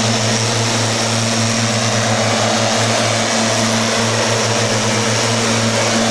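STIHL motorized backpack mist blower running steadily at high speed while spraying, its small engine giving a constant buzzing drone with the fan's rushing air.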